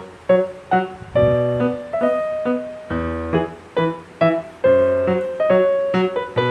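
Background piano music: a melody of separate struck notes, each dying away, several a second.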